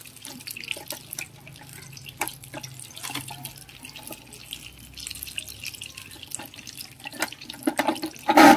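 Hand-cranked stainless-steel spiral potato cutter turning, its blade slicing a raw potato on a skewer with small wet, irregular clicks. A louder brief sound comes near the end.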